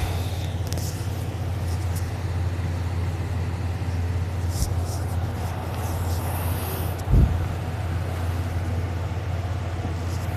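A steady low mechanical hum, like a running engine or motor, with faint soft hissing and a single short thump about seven seconds in.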